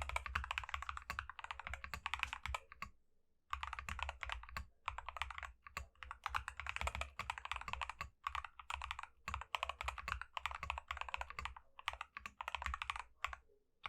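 Fast typing on a KC84 mechanical keyboard with linear Akko Cream Yellow V3 Pro switches, its case cotton-filled and tape- and PE-foam-modded. The keystrokes come in quick runs with a pause of about half a second a few seconds in and stop just before the end.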